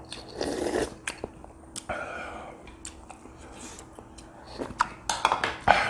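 Close-up eating sounds: a slurp from a spoon just after the start, then chewing and sharp clicks of the spoon against the bowl, with a dense run of clicks near the end.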